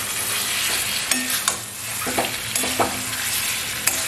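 Spice masala sizzling in a metal kadai as boiled eggs are stirred through it with a metal spatula, which scrapes and clicks against the pan several times.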